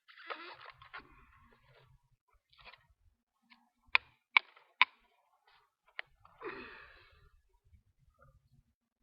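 Folding knife blade slicing through cardboard with a rasping sound, twice, about a second each: near the start and about six and a half seconds in. Between the cuts come three sharp clicks in quick succession and a fourth a moment later.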